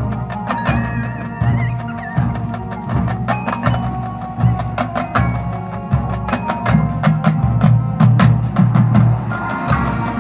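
High school marching band playing its field show: sustained brass chords over a strong low part, with many sharp percussion strikes throughout.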